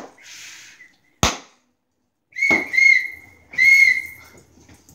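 A stick whacks a cardboard piñata twice, sharp hits at the start and about a second in. These are followed by a shrill, steady high-pitched tone in three short blasts.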